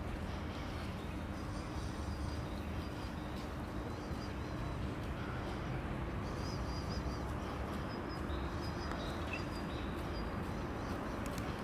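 Outdoor background noise with a steady low hum, and small birds chirping high now and then.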